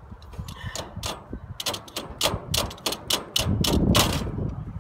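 Metal clicking and scraping of needle-nose pliers and a screwdriver working a wire cotter pin into the screw of a steel grill burner cross member: a quick, uneven run of sharp ticks, thickest and loudest a little past the middle.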